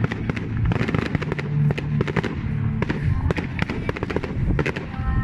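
Rapid fireworks bangs and crackling, many sharp reports in quick, irregular succession, over electronic dance music. The firework sounds are dubbed onto the footage rather than recorded live.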